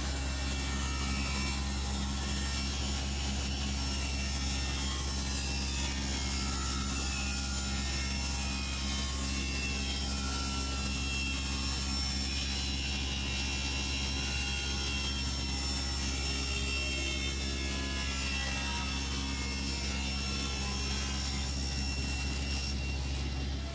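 Router with a large cornice moulding cutter, turned down to a low speed, running steadily while a pine strip is fed past it and the cutter works the wood. The motor's drone stays level throughout.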